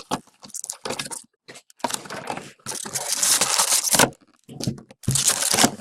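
Trading card packaging being torn open and crinkled by hand, in irregular rustling bursts with short pauses in between.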